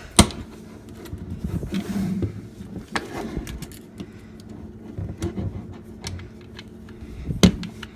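Small metal clicks, taps and scrapes of a hand tool working on a Glock 19 pistol's slide to get the rear slide cover plate off, with a sharp click just after the start and a louder one near the end.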